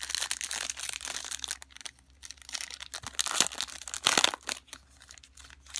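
Crinkling and tearing of a trading card pack's wrapper being handled and torn open: a dense crackle for about two seconds, then two louder rips a second apart.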